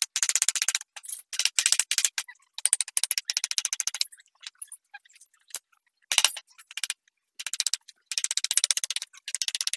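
Steel wood chisel paring wood by hand: crisp scraping and crackling as the edge slices off shavings, in short strokes with pauses between them. A single louder knock about six seconds in.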